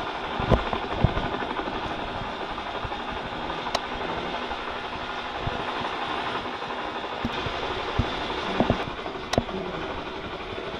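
3D-printed plastic pull-toy helicopter rolling across a tile floor, its wheel-driven gears clattering steadily as they spin the rotor. A few sharper clicks and knocks stand out, several of them in the last few seconds.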